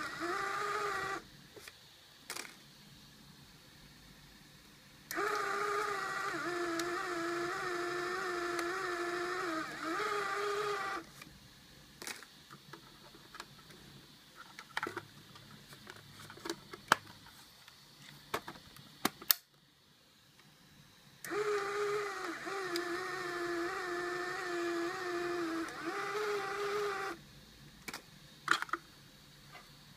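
Arduino-driven motor of a Polaroid instant camera converted for Instax Wide film, running with a steady whine in three runs of about six seconds, stopping and starting again. Sharp clicks and knocks of handling come in the pauses.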